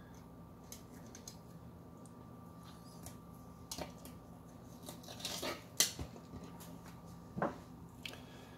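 Fillet knife slicing and scraping a small jack fillet on a plastic cutting board: faint cutting sounds with a few sharp clicks and taps, the sharpest about six seconds in, over a faint steady hum.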